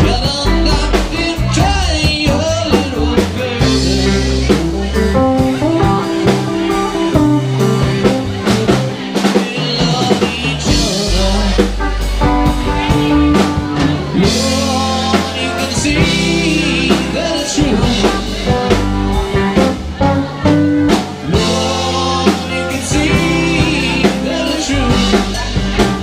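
Live rock band playing a song, with electric guitars and a drum kit.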